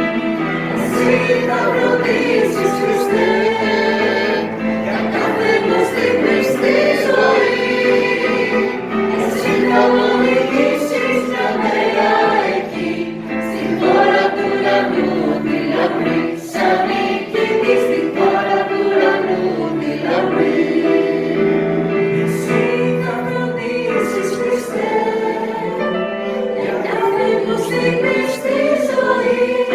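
A choir singing a hymn, several voices in harmony at a steady hymn pace.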